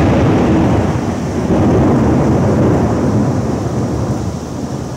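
A thunderclap breaks suddenly and rolls on as a loud, deep rumble that slowly fades over several seconds, over the steady hiss of rain.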